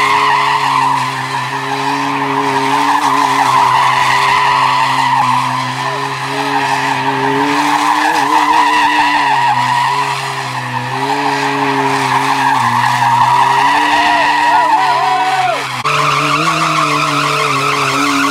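Sport motorcycle engine held at high revs for long stretches during stunt riding, its pitch stepping down and back up every few seconds.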